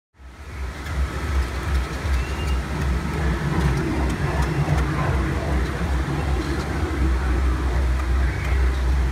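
Small ride-on kiddie train rolling along its narrow track, a steady low rumble that fades in at the start.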